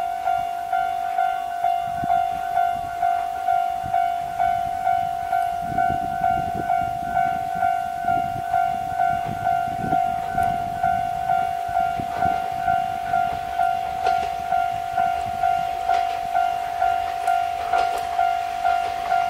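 Railroad level-crossing warning bell ringing steadily, an even electronic ding about twice a second, as a train approaches. Near the end the approaching Isumi Railway KiHa 28 and KiHa 52 diesel railcars come in under the bell.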